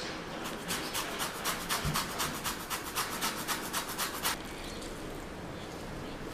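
Orange peel being grated on a flat metal zester grater: quick rasping strokes, about five a second, stopping about four seconds in.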